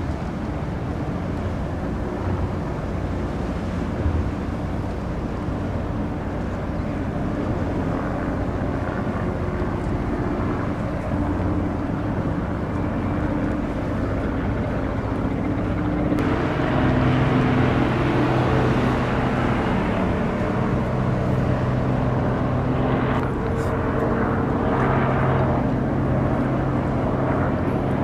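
Crude oil tanker's engine hum as it passes close: a steady low drone with several held tones over a rushing wash, growing louder about sixteen seconds in.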